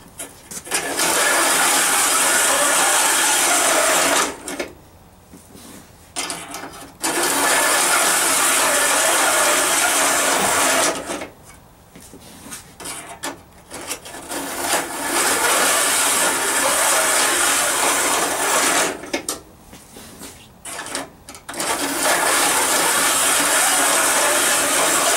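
A steel file in a saw jointer drawn along the tooth tips of an antique crosscut saw in four long rasping strokes of about four seconds each, with short pauses between. It is jointing the saw: filing the tips of the cutter and raker teeth level with each other and true to the saw's curve.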